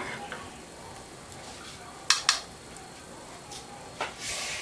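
Kitchenware clinking: a click at the start, two quick sharp clinks about two seconds in, then another knock and a brief hiss near the end.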